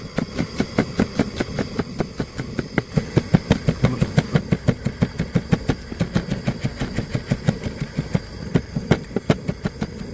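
Chef's knife rapidly chopping green chili peppers on a wooden cutting board: a steady run of sharp knocks, about five a second, as the blade strikes the board.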